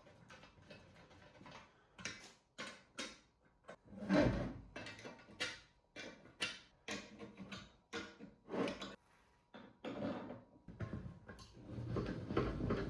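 Parts being handled during assembly: an irregular run of knocks, clunks and short scrapes as heavy pieces are moved and set down.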